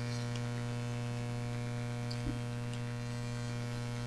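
Steady low electrical mains hum, with a faint click a little over two seconds in.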